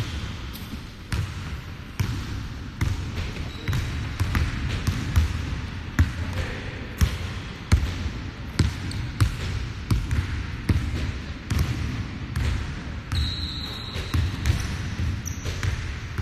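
Irregular sharp thuds on a hardwood gym floor over a low rumble, with a brief high squeak near the end.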